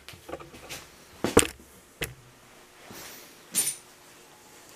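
A few sharp metal clinks and knocks from a tap and its T-handle being worked in a freshly threaded hole in a cast iron bead roller frame, the loudest about a second and a half in, with a short scrape later on.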